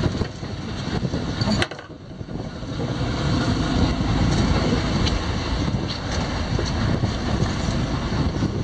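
Steady low rumble of a boat at sea with wind buffeting the microphone. A sharp click comes about a second and a half in, after which the noise briefly drops away and then builds back.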